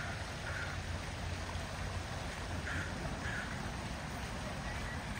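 Steady rushing noise of water flowing in a concrete park water channel, with a few brief faint calls over it.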